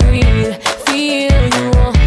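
Background music: a song with a steady drum beat.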